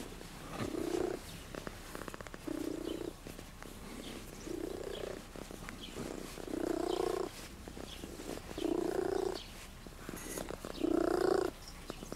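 Domestic cat purring while being stroked, the purr swelling louder about every two seconds with each breath.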